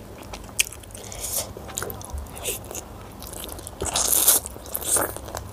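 Close-miked eating by hand: scattered small clicks of fingers in yellow rice and chicken curry, then chewing and biting, loudest about four seconds in as a handful goes into the mouth.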